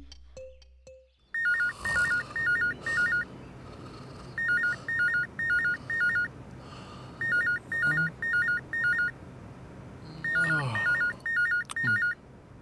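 Electronic telephone ringing with a warbling trill, in four rings about three seconds apart.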